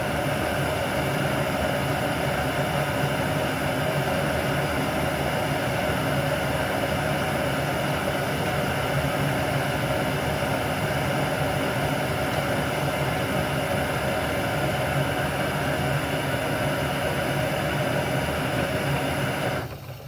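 Two Jetboil-style gas canister stoves burning at full flame, with water at the boil in both pots: a steady rushing hiss that cuts off suddenly near the end as the gas is turned off.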